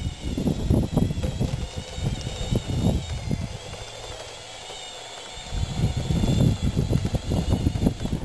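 Scale RC bulldozer's electric drive and gears whining faintly as it tracks across the dirt, under heavy wind buffeting on the microphone that eases for a moment midway.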